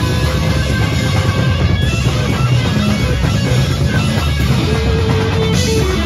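Live metal band playing loud: distorted electric guitars over a drum kit, steady and unbroken.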